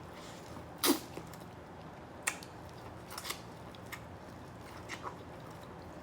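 Close-miked eating of crab: a loud sharp crack about a second in, then several lighter clicks and snaps of shell, with chewing.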